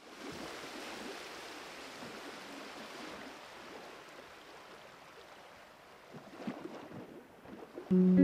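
A steady rushing noise that fades slowly, with a few faint knocks near the end. Music with a plucked guitar-like note starts just before the end.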